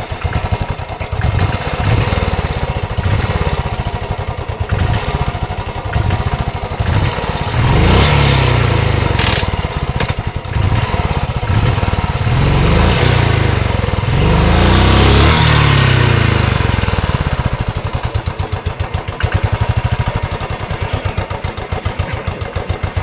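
Royal Enfield Classic 350's single-cylinder engine running with its thumping beat, revved up three times, about eight, twelve and fifteen seconds in, the last the longest. The revving is the bike straining to pull its rear wheel out of a muddy rut.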